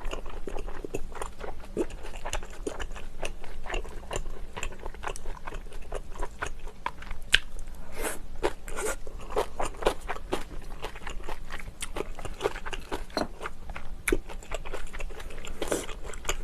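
Close-miked eating: continuous chewing with many quick, crisp crunches, several a second.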